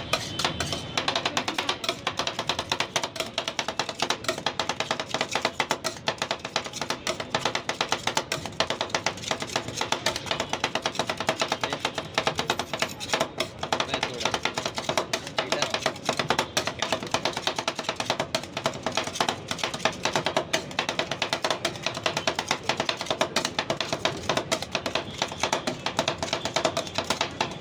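Two metal spatulas rapidly chopping and scraping strawberry ice cream on a steel cold plate, a fast clatter of metal strikes on the plate. Music plays underneath.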